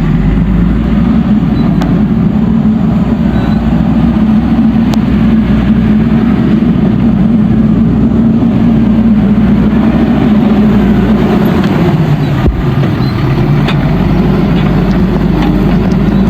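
Backhoe loader's diesel engine running steadily under working load, its note sagging briefly about twelve seconds in and picking back up. A few faint clicks sound over it.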